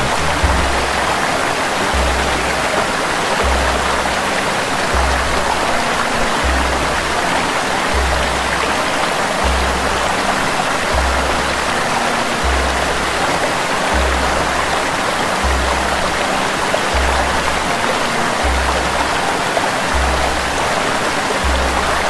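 Small waterfall cascading over rock slabs, a steady rush of water. Music is laid under it: a deep bass note pulses about every second and a half, over faint held tones.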